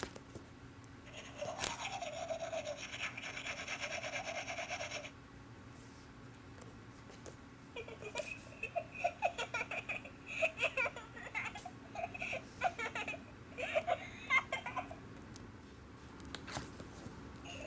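Children's sound book playing its effects through a small speaker: a steady buzzing effect for about four seconds, then a run of quick, chirpy, laugh-like sounds, with a few sharp clicks in between.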